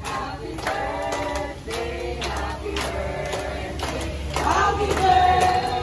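A group of voices, children and adults, singing together while people clap along.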